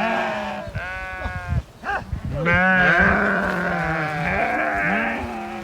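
A flock of sheep bleating: several wavering bleats one after another, overlapping in a long chorus from about halfway through.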